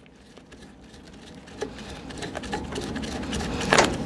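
Small clicks and scrapes of a braided supply line's plastic coupling nut being threaded by hand onto a toilet fill valve shank, with a sharp knock near the end. Under it, a low rumble grows steadily louder.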